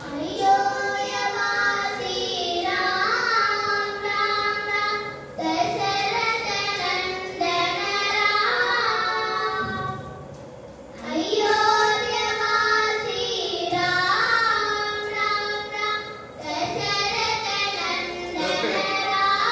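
Two young girls singing a Carnatic vocal duet together, long phrases with sliding, ornamented notes, pausing briefly between phrases, the longest pause about ten seconds in.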